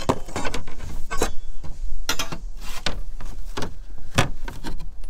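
Irregular scrapes and knocks of a fibre cement roof slate being slid up under the slates above it and rubbing against the neighbouring slates.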